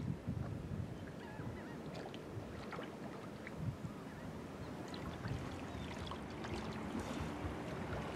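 Outdoor wetland ambience: a low rumble of wind and water with soft irregular thumps, a few faint short bird chirps, and a steady low hum that comes in about five seconds in.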